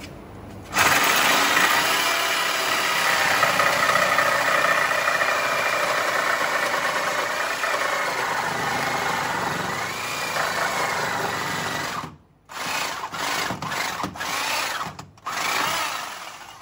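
Handheld power tool run steadily for about eleven seconds, then in several short bursts near the end.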